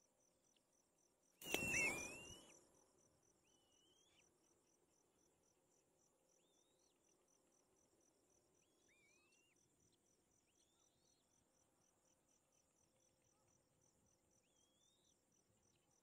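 A sudden rustle and flutter about a second and a half in, with a high call over it, as the adult black-winged kite leaves its nest. Then come faint, short, rising bird calls every second or two, over a steady high cricket trill.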